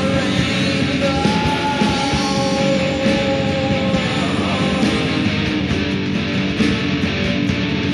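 Rock band recording with electric guitars, bass and drums in a dense, loud mix, with long held notes over it from about one to four seconds in.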